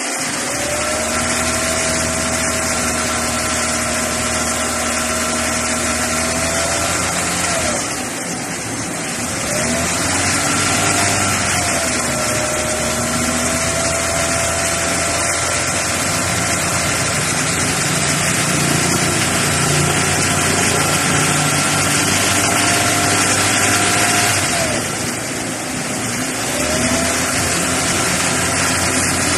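Kia Rio engine running under the open hood with a steady whine. Its speed dips briefly and picks back up twice, about a quarter of the way in and again near the end.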